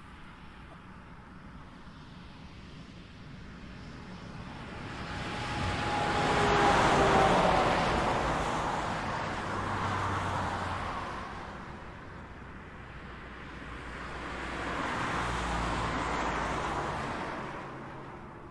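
Highway traffic passing: three vehicles go by one after another, each swelling and fading with tyre and engine noise. The loudest pass is about seven seconds in, with a slight falling whine as it goes by; the last comes near the end.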